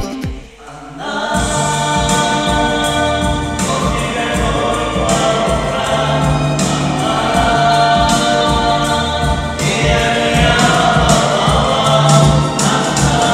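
A song: singing over an instrumental backing track. It starts about a second in, after a short dip.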